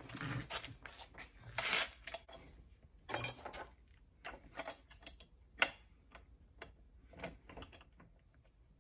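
Hands fitting a wheel onto an air compressor's axle bolt and threading on its lock nut: small metal clicks, knocks and short scrapes come one after another. A single sharp metal clank sounds about three seconds in.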